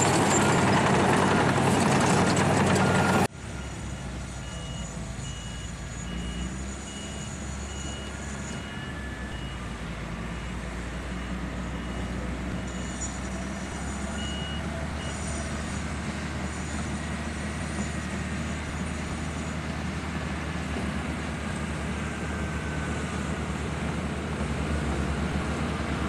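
Crawler bulldozer's diesel engine running loud and close, then, after a sudden drop in level about three seconds in, a dozer working steadily further off. A reversing alarm beeps about twice a second for roughly ten seconds in the middle.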